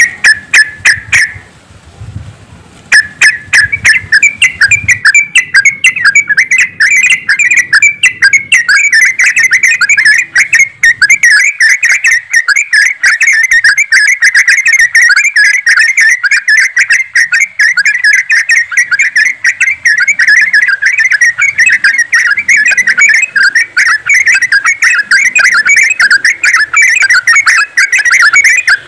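A flock of trucukan (yellow-vented bulbuls) chattering together in a dense, rapid chorus of overlapping notes. It breaks off briefly about two seconds in, then resumes and runs on without pause.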